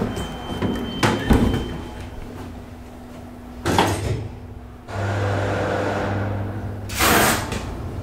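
Freight elevator doors being worked: clunks about a second in, a loud sliding rush near four seconds, a steady low motor hum, then another loud sliding rush near seven seconds as the doors close.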